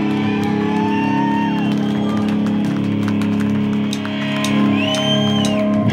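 Live rock band holding one long sustained electric guitar chord, with crowd whoops rising over it; the held chord stops abruptly at the very end.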